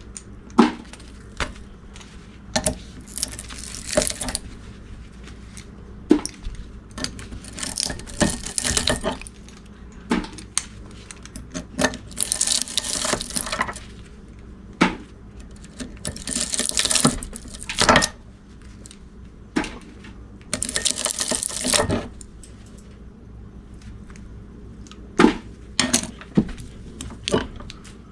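Pliers clinking on a steel electric-motor stator as copper windings are pried and pulled out of its slots: many sharp metal clicks and knocks, with four longer noisy stretches of a second or two as the wire is dragged free.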